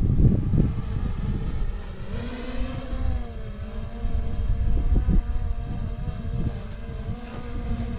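A motor humming with a pitch that wavers up and down, mixed with wind buffeting the microphone.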